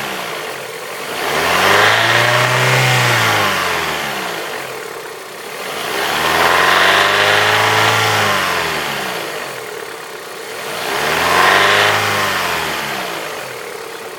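Opel X14XE 1.4-litre 16-valve four-cylinder petrol engine revved up slowly and let fall back three times, its pitch swelling and sinking each time. The owner calls the engine's sound bad.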